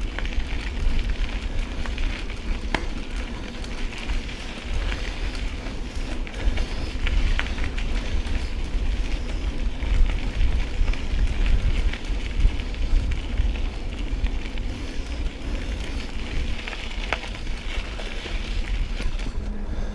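Mountain bike tyres crackling steadily over a gravel trail, with small clicks of loose stones, while wind rumbles on the body-worn camera's microphone.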